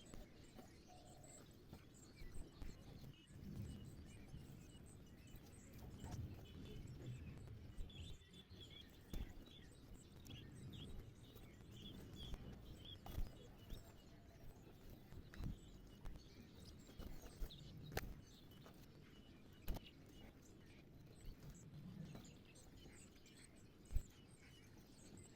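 Faint sparrow chirps over low background rumble, with scattered sharp clicks and taps; the loudest single tap comes near the end.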